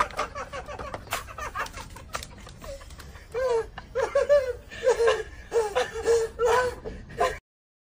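People laughing in short repeated bursts, with a few sharp taps and clicks before the laughter swells about three seconds in; the sound cuts off suddenly near the end.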